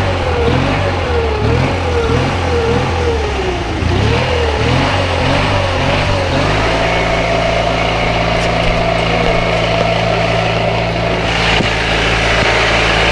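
Murray riding lawn mower's engine running, its speed rising and falling over and over for the first half, then holding a steady pitch from about halfway through.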